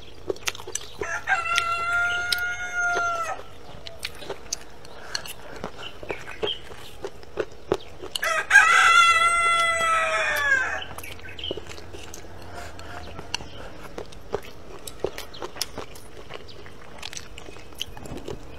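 A rooster crowing twice, each crow about two seconds long and falling away at the end, the second louder. Scattered sharp clicks and crunches of someone eating close by run underneath.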